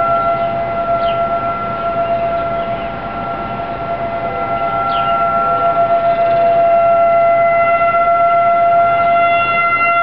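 Outdoor emergency warning siren holding one steady tone, growing louder after about six seconds.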